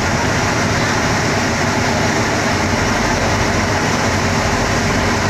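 Steady, unbroken rush and rumble of a ship under way: engine drone mixed with wind and water noise.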